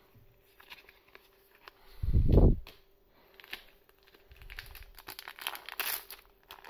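Foil trading-card booster pack crinkling and being torn open, a run of sharp crackles through the last couple of seconds. A dull low thump about two seconds in is the loudest sound.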